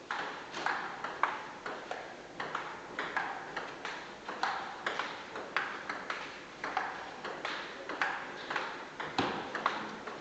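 Table tennis rally: the celluloid ball clicking off the table and the paddles in turn, about two or three hits a second, on and on without a break.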